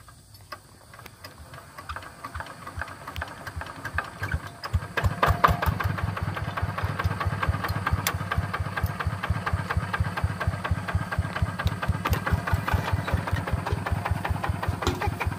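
Two-wheel hand tractor's single-cylinder diesel engine starting up: its knocking grows over the first few seconds and settles into a loud, steady, rapid chugging from about five seconds in.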